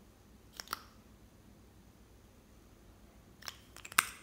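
Light plastic clicks from a small cosmetic gel tube and its applicator being handled: a pair of soft ticks early, then a run of clicks ending in a sharp click as the pink cap is pushed shut onto the tube.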